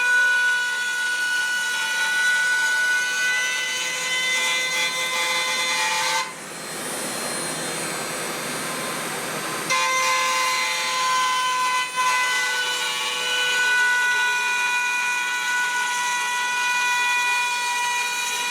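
Dremel rotary tool with a round carbide bit running at a steady high whine while it cuts a pinstripe into metal. The whine drops out for about three seconds near the middle, leaving a hiss, then comes back.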